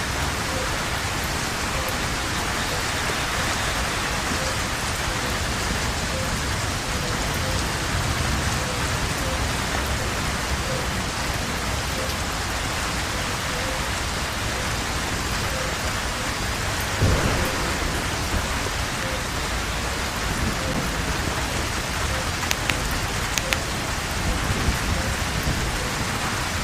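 Steady heavy rain falling, with a faint note pulsing at a regular pace throughout. About two-thirds of the way in comes a brief low rumble, and near the end a few sharp drip clicks.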